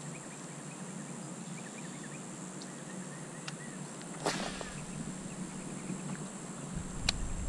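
Quiet outdoor ambience at a pond bank, with a few faint short chirps, one brief sharp swish about four seconds in, and a short click near the end.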